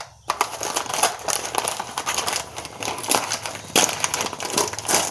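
Brown paper shipping bag crinkling and crackling as it is handled and opened, a dense run of crackles with a louder rustle about four seconds in.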